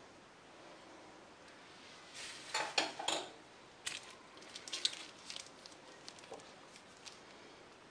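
Hands working with kitchen things on a counter: a short run of scraping and rustling about two to three seconds in, then light crinkling clicks as a plastic piping bag is handled.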